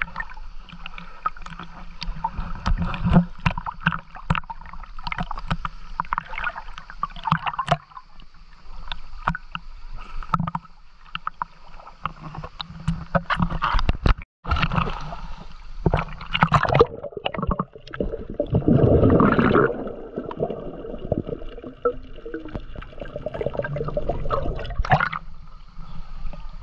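Sea water lapping, sloshing and splashing against a GoPro action camera held at the surface by a swimmer, with irregular splashes and gurgling as the lens dips in and out of the water. The sound cuts out for a moment about halfway.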